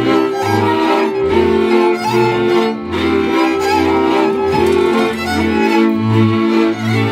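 Transylvanian village string band playing Palatka dance music: a lead fiddle melody over sustained chords from brácsa (three-string violas) and repeated low notes from a bowed double bass (bőgő).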